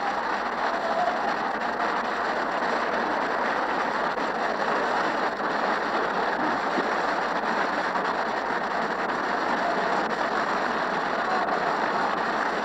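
Steady applause from many hands, a dense, even clatter without a break. It sounds dull and thin, as on an old radio broadcast taped off the air.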